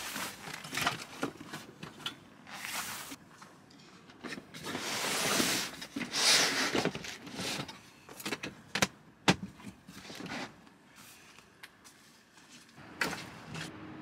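Rustling and sliding as a person shifts on hands and knees across a quilted leatherette cargo mat, with a longer scuffing rustle a third of the way in and a few sharp knocks and clicks after it.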